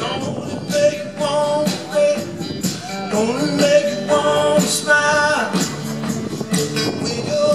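Live band playing a rock-and-roll song: a man singing long held notes over strummed acoustic guitar, with a tambourine shaking along.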